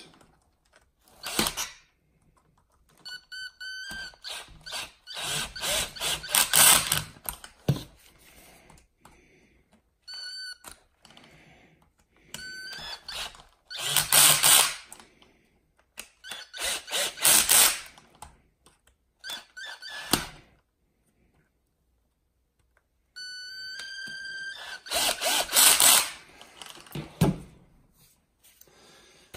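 Cordless electric screwdriver driving hex screws up into an RC truck's chassis in about seven short runs. Each run starts with a steady motor whine and turns into a fast, loud rattle, with quiet pauses between the screws.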